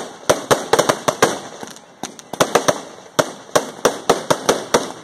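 Fireworks going off: an irregular, rapid string of sharp bangs and cracks, several a second, with a short lull a little before the middle.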